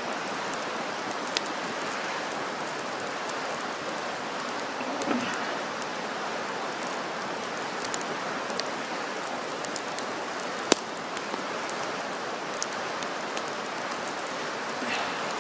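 Wood campfire burning with a steady hiss, scattered sharp crackles and a louder pop about eleven seconds in.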